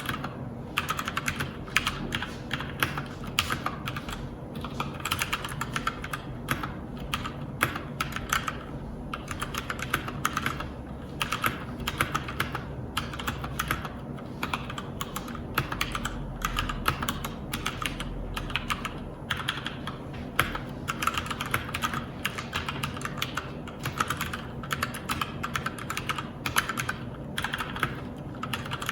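Typing test on a Keychron K4 mechanical keyboard with Gateron Brown switches and ABS keycaps: fast, continuous keystrokes clacking with short pauses between bursts.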